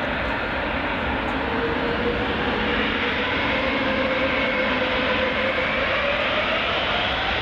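The four turbofan jet engines of an Airbus A380 taxiing, a steady rumble and hiss with a whine that rises slightly in pitch in the second half.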